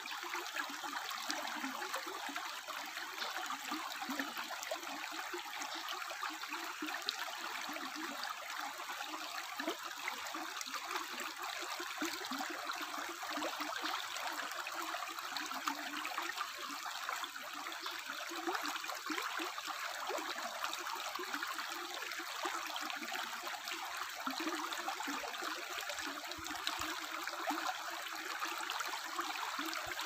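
Shallow rocky stream flowing over and between stones: a steady, even rush of running water.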